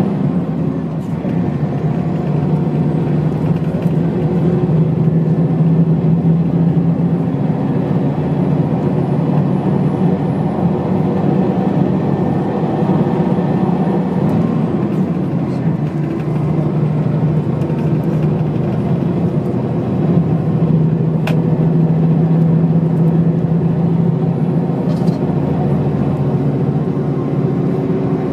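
The Volvo diesel engine of a 1997 Steyr SL 12 bus running steadily at road speed, heard from inside the passenger cabin over steady tyre and road noise. The engine note shifts a few times, and there is a single sharp click about three-quarters of the way through.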